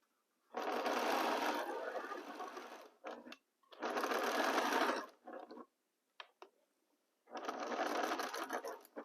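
Domestic sewing machine stitching a fabric seam in three runs of about one to two and a half seconds each, stopping briefly between runs.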